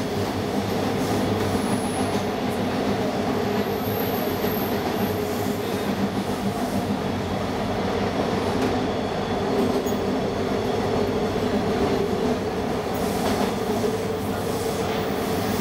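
TTC subway train running steadily at speed, heard from inside the car: a continuous rumble and drone of wheels on rail, with a few faint clicks near the end.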